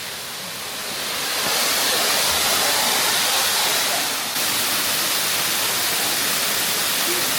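Waterfall rushing steadily, an even roar of falling water that swells over the first two seconds.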